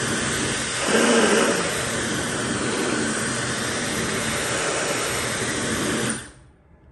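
Hair dryer running on a steady rushing blow of air and motor noise. It grows louder for a moment about a second in, then is switched off about six seconds in and runs down.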